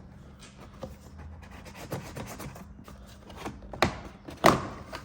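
Plastic trim tool scraping and levering against a truck's plastic door panel, with two sharp snaps near the end as the panel's retaining clips pop loose.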